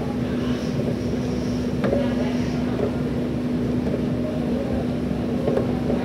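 A steady machine hum with one constant low tone over a rumbling undertone, with a couple of faint knocks from parts being handled.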